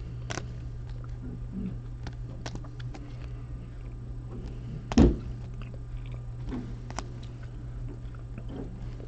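Trading cards being handled and sorted on a table: light scattered clicks and rustles, with one sharp knock about five seconds in, over a steady low hum.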